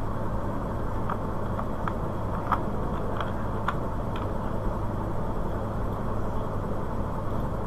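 Steady background room noise with a low hum, and a few short faint clicks in the first half.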